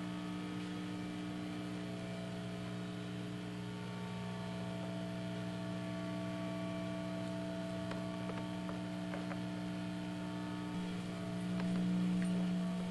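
Steady electrical mains hum with several steady overtones, swelling louder for a moment near the end.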